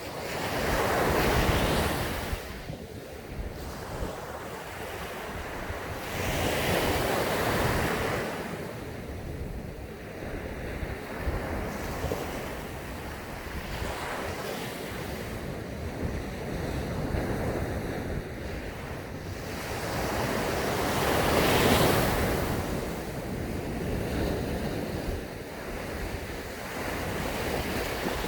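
Sea waves breaking and washing up a sandy beach, swelling loudest about a second in, about seven seconds in and again around twenty-one seconds in, with the low rumble of wind on the microphone beneath.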